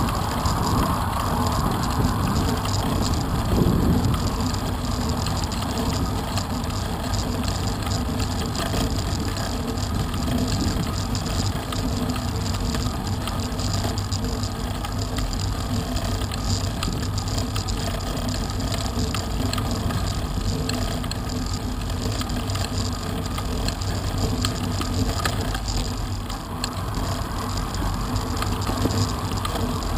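Road bike riding along a lane, heard from a bike-mounted camera: steady wind rumble on the microphone mixed with tyre noise on rough tarmac.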